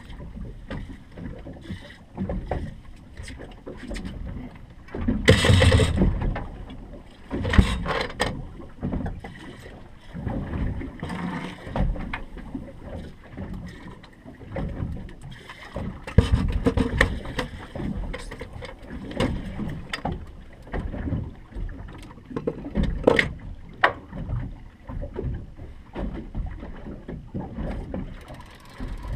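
Water slapping and lapping against the hull of a drifting fishing boat, with wind buffeting the microphone in irregular gusts, the loudest about five seconds in. A few sharp knocks on the boat are heard, around eight seconds in and twice near the end.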